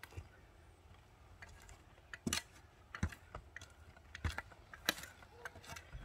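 Steel shovels digging into dirt around a thick tree root: short, sharp scrapes and knocks at irregular intervals.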